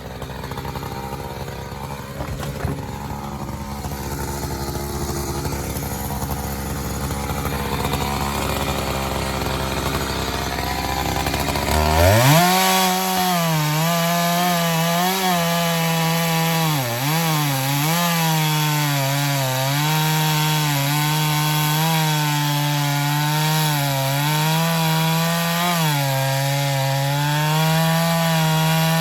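Chainsaw idling with a low rough run, then revving sharply to full throttle about twelve seconds in and cutting wood, its high engine pitch dipping again and again as the full-chisel chain bites into the cut.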